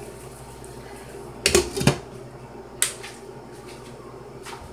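Glass lid being set on a stainless steel cooking pot: two clattering knocks about a second and a half in, then a lighter click about a second later, over a steady low hum.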